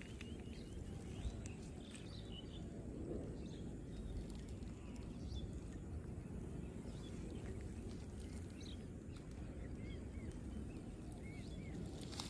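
Outdoor ambience: a steady low rumble with scattered short bird chirps, a few in the first second and a run of them near the end.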